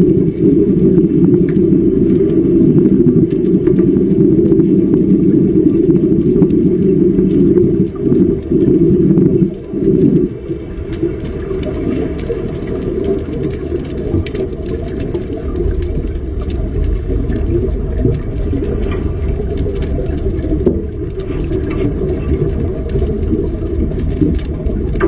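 Steady low rumbling noise, loud for about the first ten seconds, dropping out briefly and then carrying on more quietly.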